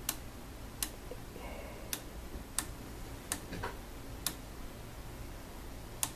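Controls of an analog oscilloscope being worked by hand: about seven sharp single clicks, spaced irregularly from well under a second to nearly two seconds apart.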